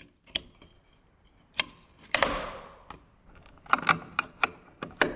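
Window hardware being fitted: a handle being handled and pressed into place on the window frame, giving scattered hard clicks and clacks. A short rustle comes about two seconds in, and a quick run of clicks near four seconds.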